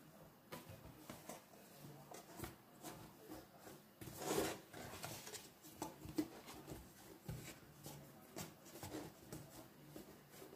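Hands rubbing and patting a thin sheet of raw dough as it is pressed into a metal frying pan: soft, quiet handling noises with scattered light taps and one louder rustle about four seconds in.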